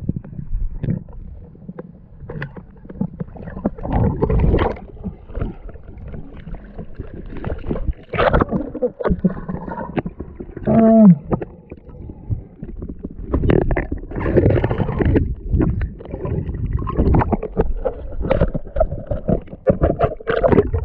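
Muffled water noise with irregular low bumps and gurgling, heard through an underwater camera housing as a freediver swims and breathes out bubbles. A brief falling tone comes about eleven seconds in.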